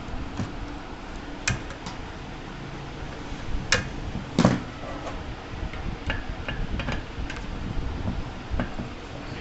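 Scattered light clicks and knocks of small parts and tools being handled on a repair bench, over a steady background hum. The sharpest knock comes about four and a half seconds in, with a run of smaller ticks a little later.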